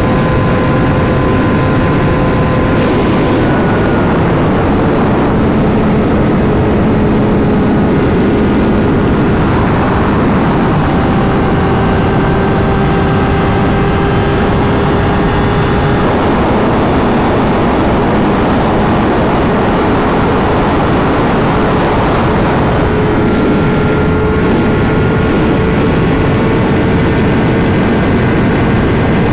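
Honda CBR600RR's inline-four engine running at steady cruising revs while riding, under heavy wind and road rush. The engine note drops about three seconds in, then climbs slowly near the end.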